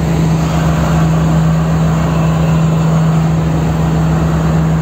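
Diesel locomotive engine idling, a loud steady hum and low rumble as the train stands ready to move off.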